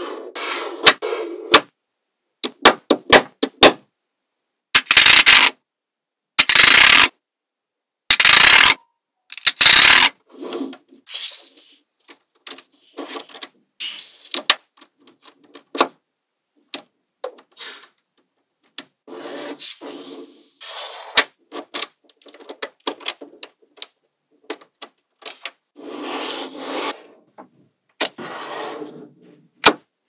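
Small magnetic balls clicking and snapping together, with scattered sharp clicks throughout and four louder clattering rushes of many balls at once between about five and ten seconds in.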